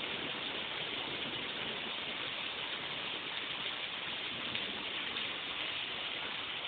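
Heavy rain pouring down, a steady, even hiss without a break.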